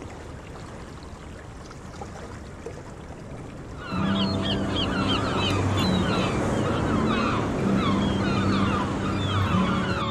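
A flock of seagulls calling over the wash of surf, a seashore sound effect that cuts in about four seconds in after faint hiss: many short overlapping cries over an even rush of waves, with a low steady hum underneath.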